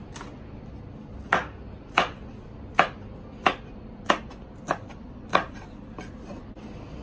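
A chef's knife slicing red chillies on a wooden cutting board: a sharp knock as the blade meets the board on each stroke, seven distinct strokes in an even rhythm of about one and a half a second, with a few lighter taps around them.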